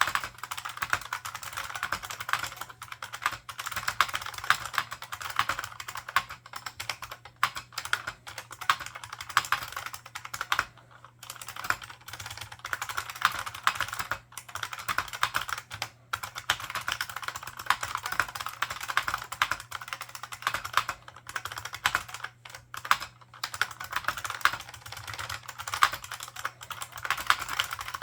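Steady, fast typing on an IBM 4683 point-of-sale keyboard with membrane buckling-spring switches and PBT dye-sublimated keycaps, each keystroke a sharp click. A few short pauses break the typing.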